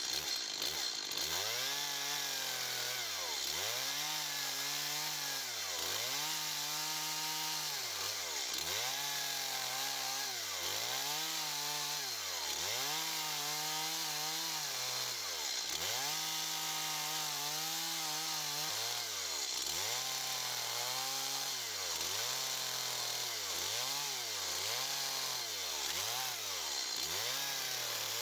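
Gasoline chainsaw running under her hands, its engine pitch swinging up and down over and over as the throttle and cutting load change, about once every second and a half at first and faster toward the end.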